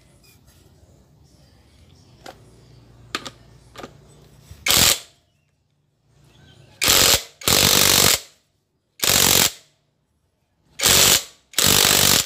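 Cordless impact wrench hammering in six short bursts of under a second each, driving the clutch centre lock nut tight on a Honda Supra/Grand (C100) engine through a long extension. A few light metal clicks come before the first burst.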